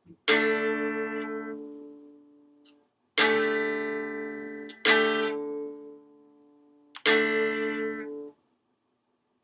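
Guitar played slowly, four strummed chords a second or two apart, each left to ring out and fade; the last chord is cut off suddenly.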